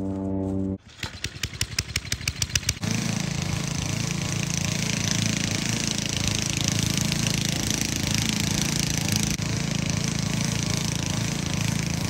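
A held humming tone cuts off about a second in. A gas push lawn mower's small engine then fires in quick, growing pulses for about two seconds, catches, and runs steadily after that.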